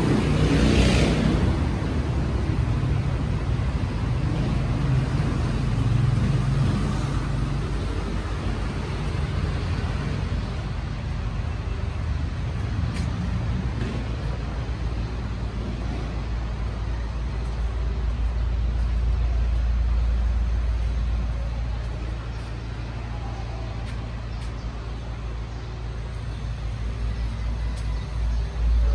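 Steady low rumble of motor vehicle noise.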